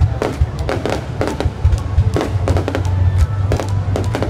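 Fireworks going off in rapid, irregular bangs and crackles, mixed with music that has a heavy bass.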